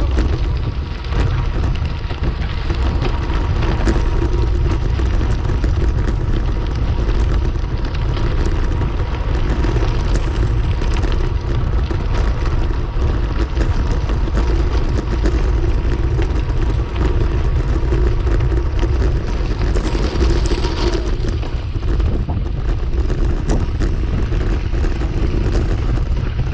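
Steady wind rush on an action camera's microphone while cycling, with the rumble of bicycle tyres rolling over a gravel farm road and then grass.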